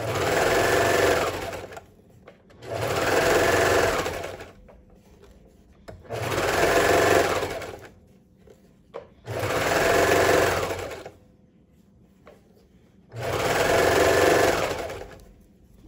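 Baby Lock Imagine serger (overlock machine) stitching in five short runs of about two seconds each, stopping between them. It is going around a sleeve seam a second time to secure it, its knife trimming the edge as it sews.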